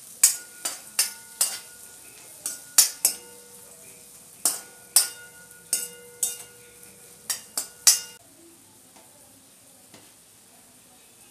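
Steel ladle stirring vegetables in a stainless-steel wok, striking and scraping the metal bowl: about fourteen sharp clanks over eight seconds, some leaving the wok ringing, then the clanks stop. Faint sizzling of the vegetables frying in oil runs underneath.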